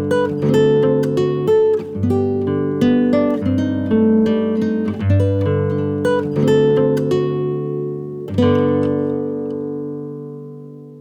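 Acoustic guitar music played through the amplifier under test and its speaker: a run of plucked notes, then a final strummed chord about eight seconds in that rings out and fades.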